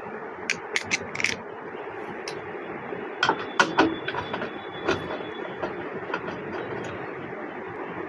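Sharp clicks and light knocks of a motherboard and loosened screws being handled and lifted out of a steel desktop PC case, over steady background noise. There are a few clicks in the first second or so, a tight cluster of knocks a little after the middle of the first half, and one more shortly after.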